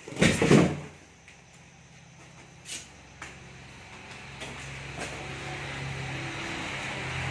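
A loud knock about a quarter of a second in, then an outboard motor running with a steady low hum that grows gradually louder.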